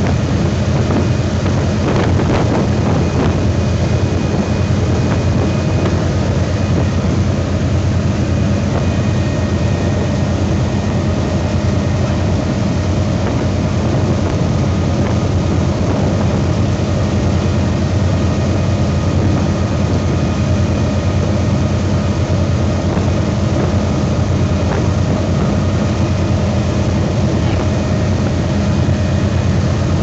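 Boat engine running steadily at speed, mixed with the rush of water churned up in its wake.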